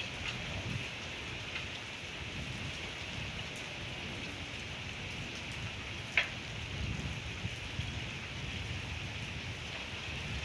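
Heavy rain falling steadily, drops pattering on surfaces, with one sharp tap about six seconds in.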